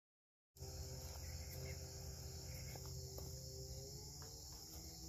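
Steady high-pitched chorus of crickets, with a low rumble underneath; it begins abruptly about half a second in, after dead silence.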